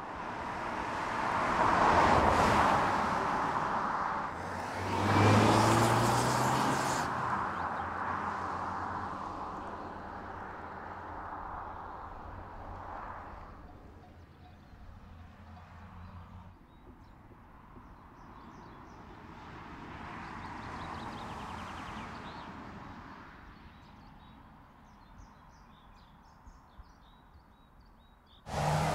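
Škoda Superb Combi estate car driving past on a paved road, its tyre and engine noise swelling loudly twice in the first several seconds and then slowly fading. A softer pass swells and fades later, and small birds chirp faintly near the end.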